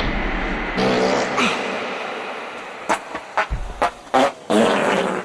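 Recorded human farts played back through a modular synth rig with an Instruo Lúbadh looper. A long rasping fart trails off in the first couple of seconds, a run of short sputtering pops follows, and another drawn-out fart with a wavering pitch comes near the end.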